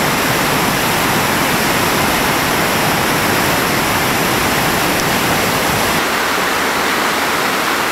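Whitewater of a rain-swollen creek pouring over a waterfall drop: a loud, steady rush of water. About six seconds in, the deep rumble drops away, leaving a lighter rush of fast water.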